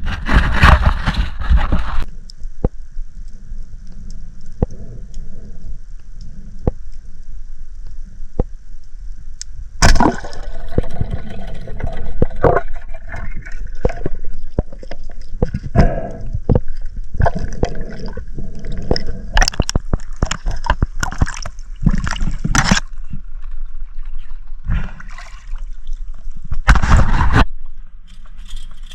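Water sloshing and gurgling around a spearfisher's camera at and under the surface, with irregular louder splashes.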